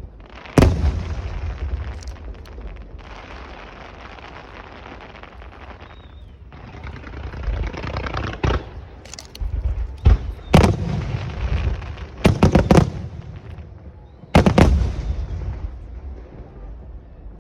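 Aerial fireworks shells bursting: a loud boom about half a second in, a quick run of booms around ten to thirteen seconds in and another near fourteen and a half seconds, with a steady hiss between the bursts.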